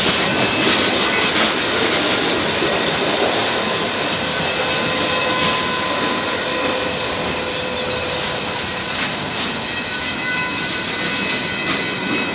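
Union Pacific freight cars rolling past at close range: a steady rush of steel wheels on the rails that eases slightly as the last car goes by, with a few faint steady high tones and a couple of clicks near the end.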